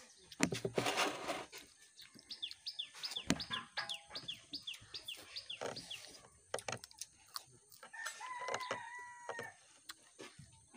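Rooster crowing once, a long held call about eight seconds in, after a run of a dozen or so quick, short falling chirps. A brief burst of noise comes near the start.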